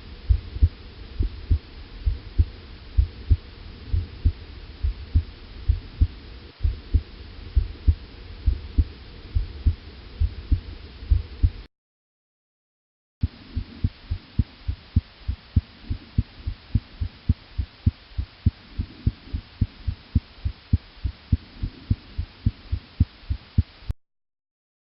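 Recorded heart sounds: a steady run of low heartbeat thumps over a constant background hiss. There are two separate recordings, with a sudden break of silence about halfway through.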